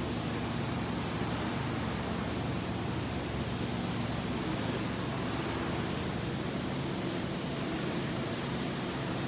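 Steady rushing hiss of carpet-extraction wands pulling suction through their hoses as they are worked back and forth over the carpet, with a low steady hum underneath.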